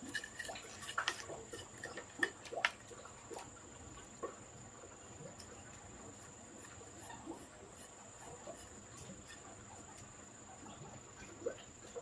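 A steady high-pitched insect drone, like crickets, with scattered light clicks and knocks, most of them in the first few seconds.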